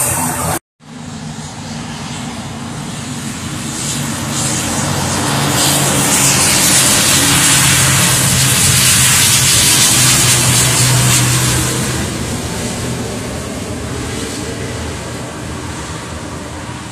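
Wings Air ATR twin-turboprop airliner moving at speed along the runway, its steady propeller drone and engine noise swelling to a peak about halfway through, then fading as it moves away. A brief drop-out to silence under a second in.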